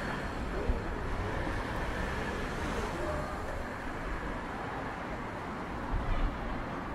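City street ambience: a steady hum of road traffic, with a brief low thump about a second in and a couple more near the end.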